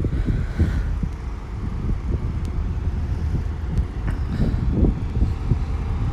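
Great Western Railway Castle set, a short High Speed Train with class 43 diesel power cars, passing at close range: a steady low rumble of engine and wheels on the rails.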